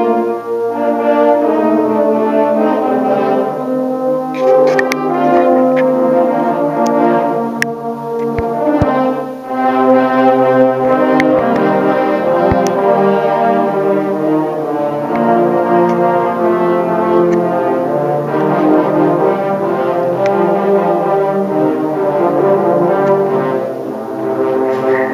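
Live brass ensemble of trombones, trumpets and other brass playing together, holding full chords that shift every second or so.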